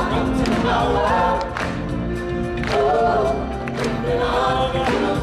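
A group of singers sings together in harmony over backing music, with drum strikes punctuating the song.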